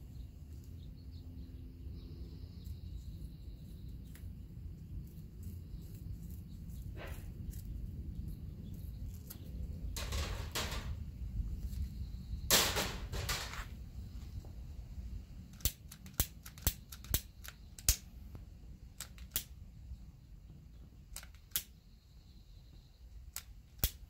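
Wind rumbling on the microphone, with two longer noises around ten and thirteen seconds in. In the second half, a string of about eight sharp, separate clicks: a long-neck butane lighter's igniter being clicked again and again to get a flame for sealing the cut end of nylon webbing.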